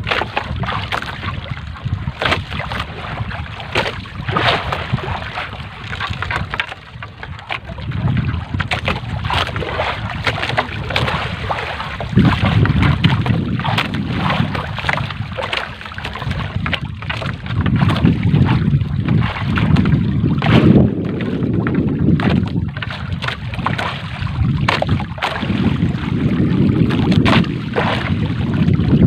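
Wind buffeting the microphone in gusts that grow stronger about twelve seconds in. Under it, the rustling, dripping and ticking of a wet three-ply trammel net being hauled by hand over a small boat's wooden side.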